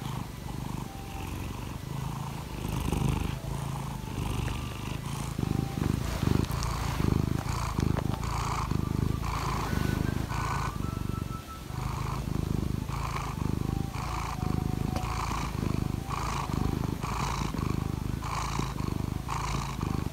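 Domestic cat purring steadily at close range, the purr pulsing in an even rhythm.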